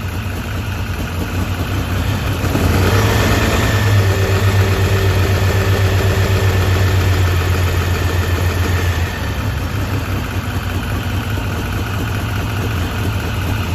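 Turbocharged Ford Pinto four-cylinder engine running through a stainless steel exhaust. About three seconds in the revs rise and hold, then they fall back to a steady idle near the nine-second mark.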